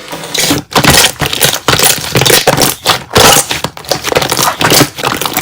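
Slime being squeezed and worked by hand, giving loud crackling, crunching squishes in quick, irregular bursts.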